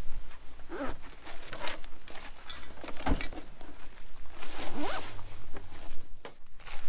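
Zipper on a soft bag being pulled: two drawn-out zips, one about a second in and one near five seconds in, each rising in pitch. A short knock comes about three seconds in.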